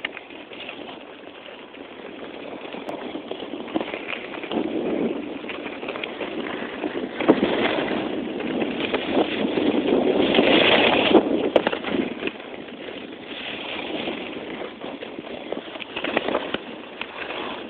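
Skis sliding and scraping over packed snow during a downhill run, mixed with wind rushing over the microphone. The noise builds to its loudest around the middle, then eases off.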